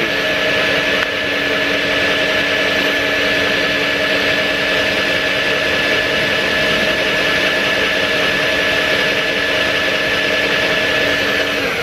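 Cordless drill in its low-speed first gear running steadily, spinning a 350 W 12 V DC motor used as a generator that feeds two heaters as its load. It gives an even whine and stops near the end with a brief drop in pitch.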